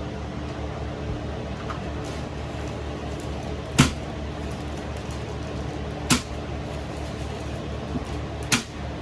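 Three sharp knocks, about two to two and a half seconds apart, over a steady low hum.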